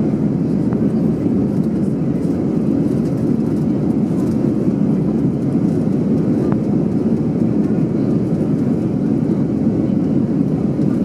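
Steady engine and airflow noise of an Airbus A320 in its climb after takeoff, heard from a window seat inside the cabin: a loud, even, low rumble.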